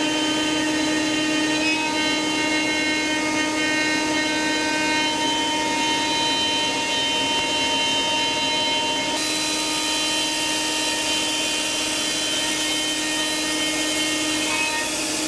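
Avid CNC router's HITECO spindle driving a half-inch downcut spiral bit through a wood blank: a steady whine over the rush of the vacuum pump holding the blank down. The hiss gets brighter about nine seconds in.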